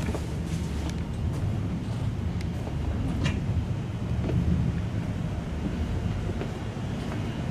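Cabin noise of an electric commuter train running at speed: a steady low rumble with a few sharp clicks, the clearest about three seconds in.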